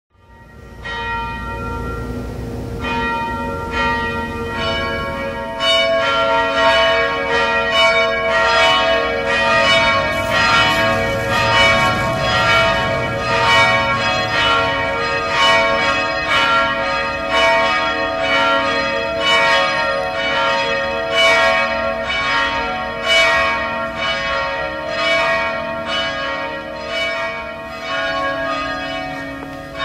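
Church tower bells ringing a peal, the strikes coming about two a second and overlapping as each bell rings on. The bells grow louder about six seconds in.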